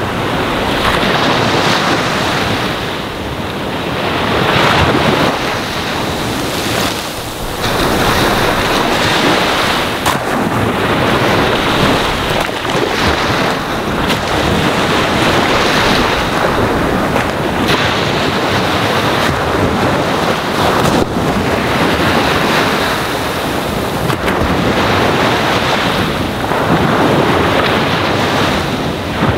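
Ocean waves washing onto a sandy shore: a continuous rush of surf that swells and eases every few seconds.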